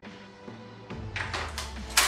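Quiet background music with a few light plastic clicks that grow louder near the end, from handling a sprue of miniature parts.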